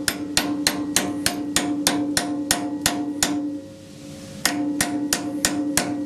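Rapid hammer taps on metal front-suspension parts, about four to five strikes a second with a steady metallic ring. The tapping pauses for about a second shortly after the middle, then resumes.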